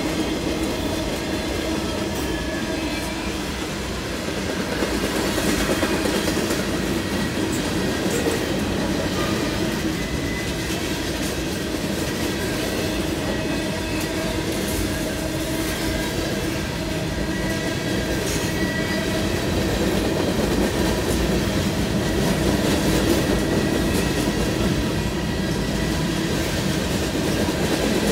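Freight cars of a long train rolling past at a grade crossing: a steady rumble of steel wheels on the rails.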